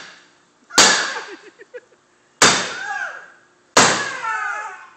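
A bat smashing into the sheet-metal body of an old pickup truck: three hard blows about a second and a half apart, each with a short metallic ring dying away.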